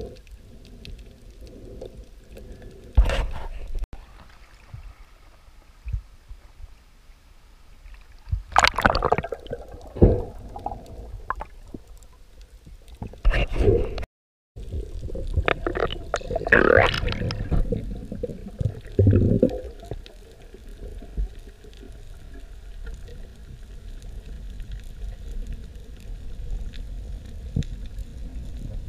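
Underwater audio heard through a camera housing: a steady low rumble of moving water with irregular muffled knocks and scrapes, several of them loud, from the diver handling a speared fish and speargun.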